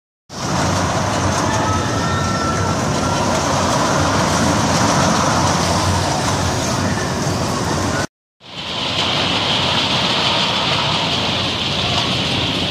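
Loud, steady din of a carnival midway with a Larson Ring of Fire ride running: machinery noise mixed with crowd sounds. It cuts out for a moment about eight seconds in and returns with a stronger high hiss.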